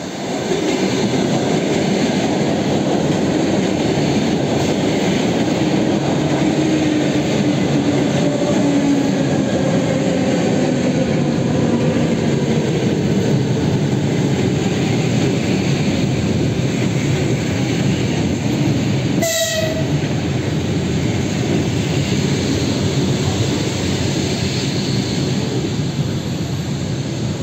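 EP2D suburban electric train running past at close range, with a steady rumble of wheels on rails and a motor whine that falls in pitch. A short train-horn blast sounds about two-thirds of the way through.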